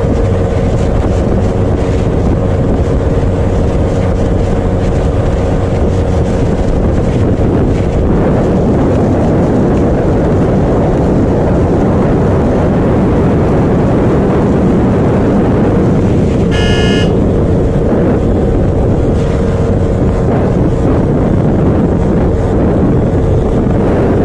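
Motorcycle engine held at steady high speed, around 160 km/h, under heavy wind rush on the onboard microphone. A short horn toot sounds about two-thirds of the way through.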